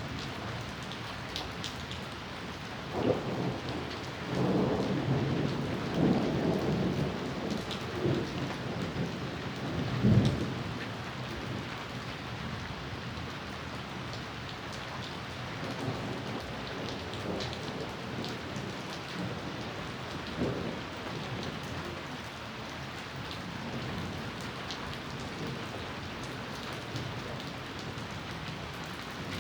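Steady rain falling, with thunder rumbling. A long roll of thunder builds from about three seconds in and peaks in a loud clap near ten seconds. Fainter rumbles follow later.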